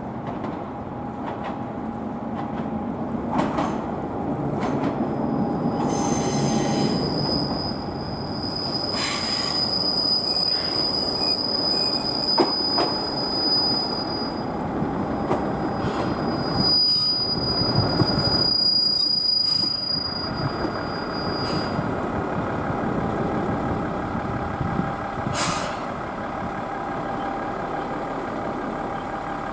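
Tenryū Hamanako Railroad diesel railcar running on the line, its rumble building to a peak about two-thirds of the way through. A high steady metallic squeal rises above it twice, for several seconds each time, with scattered clicks from the wheels on the rails. Near the end it settles to a steady engine hum.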